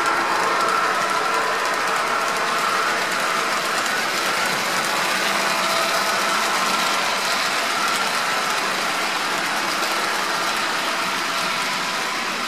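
Model railroad freight cars rolling past close by: a steady rush of small metal wheels on track with fast clicking over the rail joints. A faint hum fades out during the first few seconds.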